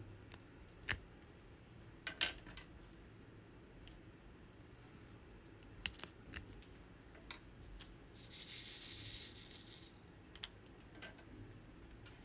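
Faint, irregular clicks and taps of a plastic drill pen picking up and pressing round resin drills onto a diamond-painting canvas, with one scratchy rubbing sound lasting about a second and a half past the middle.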